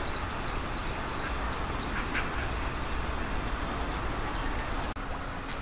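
Ducklings peeping: a steady run of short, high peeps, about three a second, stopping a little over two seconds in, over a low background rumble.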